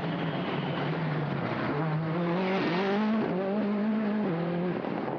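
Rally car engine, held steady at first, then revving up and dropping back three times through the gears before settling again.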